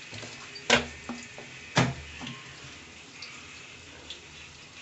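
Chopped onions sizzling in hot oil in a cooking pot with a steady hiss, while a metal spoon stirs them and knocks sharply against the pot twice, about a second apart, with a few lighter clinks.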